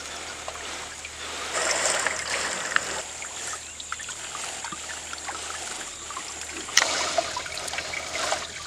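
Water streaming and dripping off a wet fishing net as it is hauled out of the river by hand, with light splashing; it surges louder about a second and a half in and again near the end.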